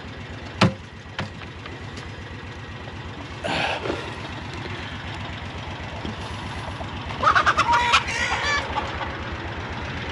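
A vehicle engine idling steadily, with two sharp clicks early on. Near the end, chickens cluck loudly for about a second and a half.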